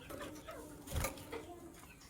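Lovebirds chirping in short calls over a low, drawn-out call from another bird, with a thump about a second in.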